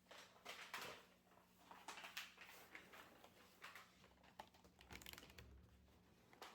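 Near silence: faint scattered clicks and light rustling in a small room, over a faint steady hum.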